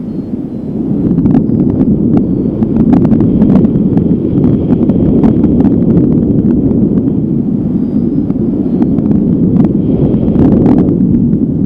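Strong wind buffeting the microphone, a steady low rumble with scattered short crackles.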